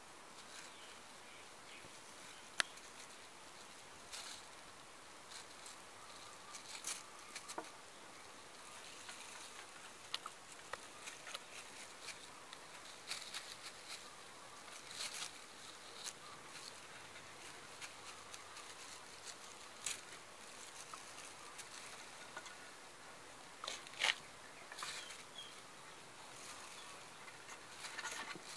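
Faint, intermittent crinkling and rustling of a plastic sheet as kittens wrestle and scramble on it. Scattered sharp clicks run through it, the sharpest about two and a half seconds in and a few seconds before the end.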